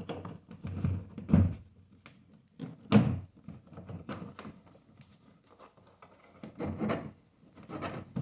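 Irregular clicks, scrapes and knocks of a clip-removal tool working at the retaining clip of a manual window crank handle on a truck door panel. The loudest knock comes about three seconds in.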